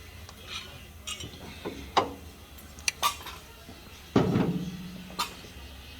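Metal parts and tools clinking and tapping as a cylinder is worked down over piston rings held in a ring compressor, with a louder clank about four seconds in that rings on for about a second.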